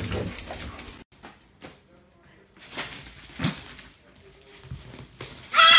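Huskies scrambling off a couch for about a second, then quiet scuffling as a husky plays with a baby goat. Near the end the goat kid gives a loud, quavering bleat.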